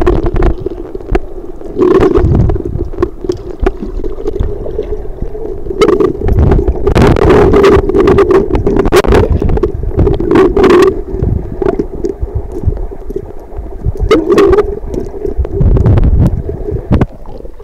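Camera microphone submerged in a stream: muffled rushing and gurgling of water against the camera, with a steady low hum and irregular knocks and bumps as it moves around under the surface.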